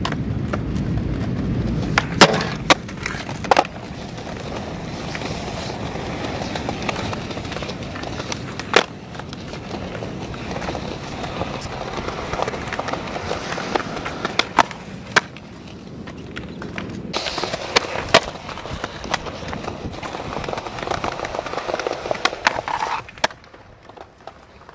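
Skateboard rolling on smooth concrete, with several sharp clacks of the board hitting the ground. The loudest come as three clacks close together between two and four seconds in.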